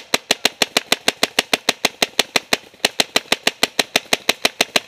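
Paintball marker firing rapidly, sharp pops at about five shots a second, with a short break about two and a half seconds in.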